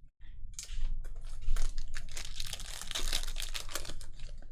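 Foil trading-card pack wrapper crinkling and tearing as it is handled and ripped open, a dense run of crackles.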